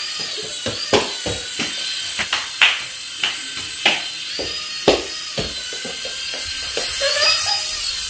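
The small propeller motor of an infrared flying ball toy whirring steadily as it hovers, with a dozen or so sharp clicks and taps scattered through, some of the loudest about a second, two and a half seconds and five seconds in.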